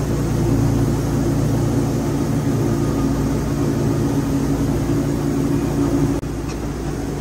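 Wood-Mizer LT40 portable bandsaw mill's engine running steadily at a constant pitch. About six seconds in the engine tone drops out abruptly, leaving a lower steady noise.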